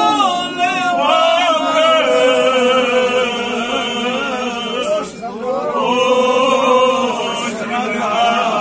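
Male voice chanting a manqabat, a Sufi devotional hymn in praise of a saint, in long held notes with melodic ornaments; the voice breaks off briefly about five seconds in and then resumes.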